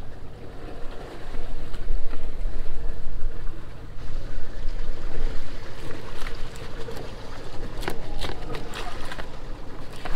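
Sailboat's engine running steadily while motoring in calm water. A few sharp clicks and knocks come between about six and nine seconds in, as a knife works a mackerel on a plastic tray.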